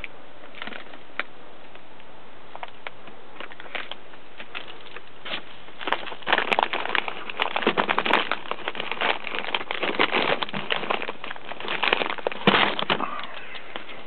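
Close rustling and crackling, dense from about six seconds in, like cloth or bedding being disturbed right at the microphone; before that only a few scattered clicks over faint hiss.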